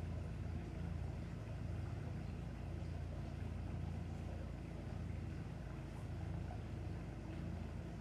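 A steady low motor hum running evenly, with no distinct events.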